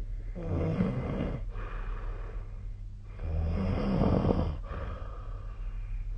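A sleeping person snoring: two snores, each about a second and a half long, the second starting about three seconds in.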